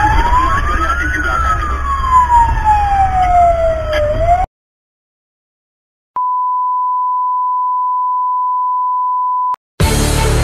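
Fire-engine siren wailing, its pitch rising for about a second and then falling slowly, over a low engine rumble; it cuts off suddenly about four and a half seconds in. After a short silence, a steady one-pitch beep tone sounds for about three and a half seconds, and music starts near the end.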